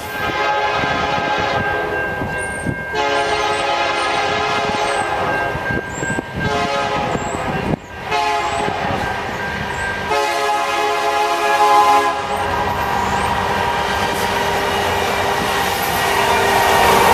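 Norfolk Southern freight train's locomotive air horn sounding a chord in a grade-crossing sequence: long blasts with a short one, for about twelve seconds. After that the horn gives way to the noise of the passing locomotives and wagons, which grows louder near the end.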